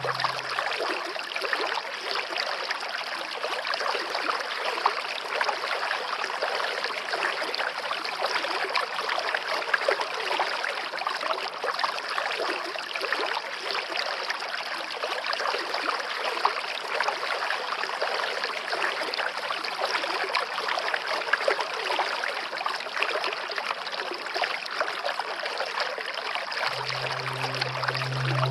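Stream water flowing and splashing steadily, a continuous rushing with small trickles. Near the end, low held music tones come in under the water.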